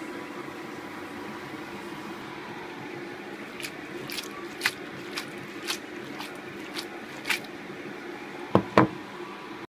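Spaghetti being tossed and stirred through a creamy sauce in a nonstick frying pan: wet squelching, with a string of light clicks of the utensil against the pan from a few seconds in and two sharper knocks near the end. A steady hum runs underneath.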